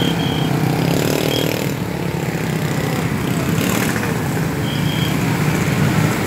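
Many motor scooters and cars running in slow, dense traffic through flood water, a steady mix of engine noise. A brief high tone sounds about five seconds in.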